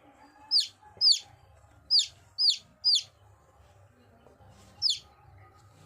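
Chicks peeping: six loud, sharp, high-pitched peeps, each falling in pitch. They come in an uneven run over the first three seconds, then one more after a pause of about two seconds.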